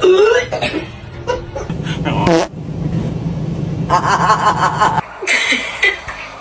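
People laughing and snickering in short bursts.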